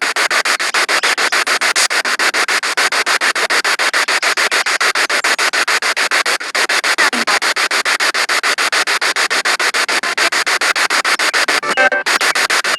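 Spirit box radio sweeping through stations: loud static chopped into a rapid, even pulse of about nine bursts a second. A brief snatch of pitched radio sound comes through near the end.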